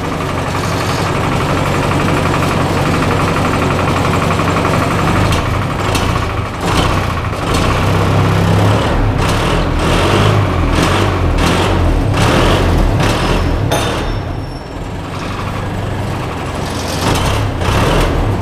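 Engine of a pallet-fork machine running and working harder as its forks bear down on a cardboard tool box and crush it, with scattered crunches and crackles through the middle and again near the end.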